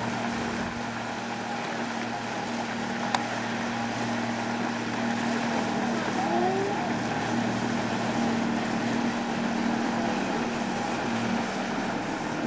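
Small outboard motor running steadily as it tows a hydrokinetic barrel prototype, a constant low hum over a steady rushing noise. A single sharp click about three seconds in.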